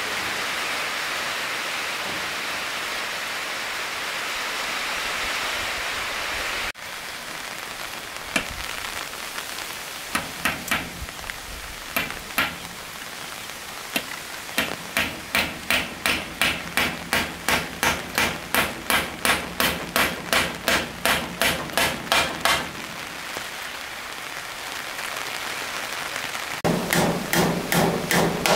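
A steady hiss, then after a sudden cut a hammer driving nails into wood: a few scattered blows, then a steady run of about two blows a second for some eight seconds, and a quicker run of blows near the end.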